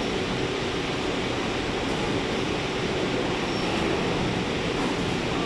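Steady, even rushing noise of a metal workshop with a faint hum and no distinct knocks or clanks.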